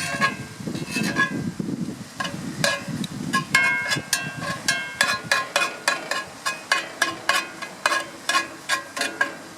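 A metal spatula repeatedly striking and scraping a pan as ground sausage is chopped and stirred on the grill, each stroke a short ringing clink, about two or three a second. The sausage sizzles underneath.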